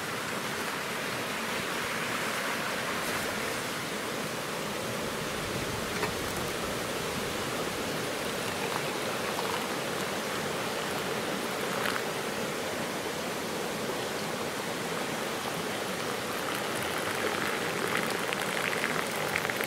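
Steady rush of a nearby stream, with hot water poured from an enamel pot splashing into enamel mugs, the pouring plainest near the end.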